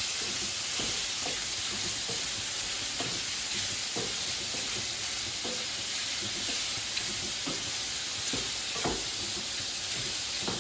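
Marinated shrimps sizzling steadily in hot canola oil in a wok, with short scattered clacks of a utensil turning them.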